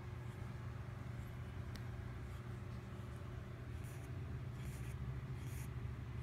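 Domestic cat purring close up, a steady low rumble, with a few brief rustles of fur about two-thirds of the way in.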